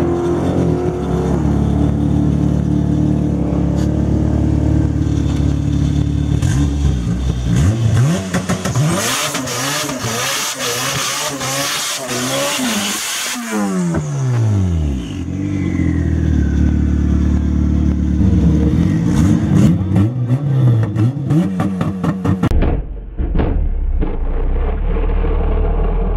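Turbocharged Honda K24 four-cylinder in a 2013 Civic Si revving hard through a burnout, the front tyres spinning and screeching for several seconds in the middle. The revs then fall away. After that the engine runs with throttle blips as the car stages, the sound turning duller near the end.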